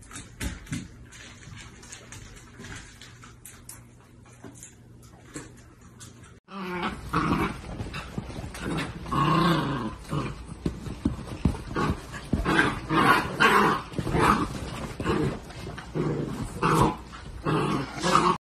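Quiet scattered clicking, then about six seconds in two mini dachshunds play-fighting, growling almost without pause.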